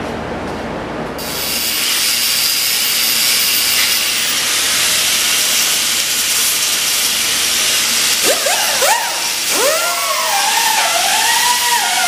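Hand-held grinding or cut-off tool running against steel, with a loud, steady hiss starting about a second in. From about two-thirds of the way through, its whine drops in pitch and climbs back several times as the tool is loaded and eased off.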